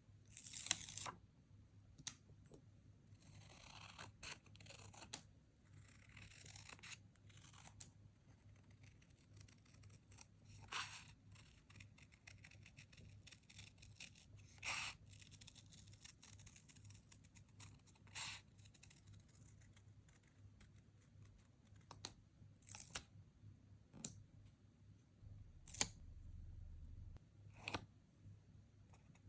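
Stickers and paper being handled for a sticker collage: soft rustling in stretches, broken by scattered sharp clicks and taps.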